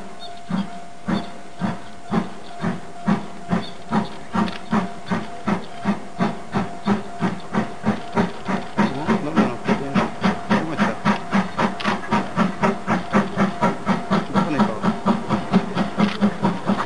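Steam locomotive working hard as it pulls away, its exhaust chuffs quickening from about two to about four a second and growing louder as it approaches.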